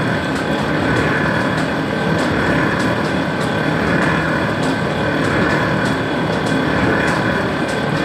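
Coconut-oil mill machinery running steadily, a continuous mechanical hum with a light, fairly regular ticking running through it.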